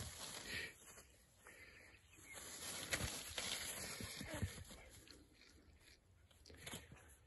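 Long grass rustling and the soft thuds of a dog's paws as it runs after and pounces on a toy lure dragged through the grass on a cord. It is loudest a few seconds in, with a few sharp knocks near the end.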